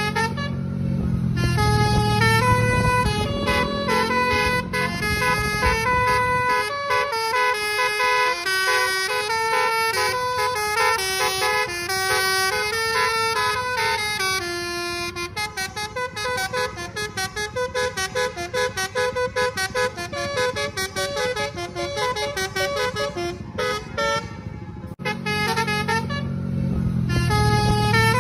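Basuri telolet bus horn playing a melody of quick changing notes, the multi-tone musical air horn of an Indonesian bus. A bus engine's low rumble runs under the first few seconds and returns near the end.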